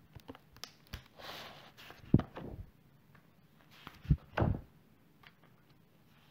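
A brief rustle about a second in, then a sharp knock and, about four seconds in, two short soft thumps, heard over faint small-room tone.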